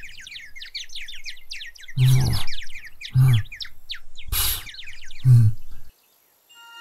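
Cartoon tweeting-birds sound effect, a rapid string of little chirps that signals a character knocked dizzy, with a man's short groans about two, three and five seconds in and a breathy burst around four and a half seconds. It cuts off about a second before the end, and a chiming jingle starts at the very end.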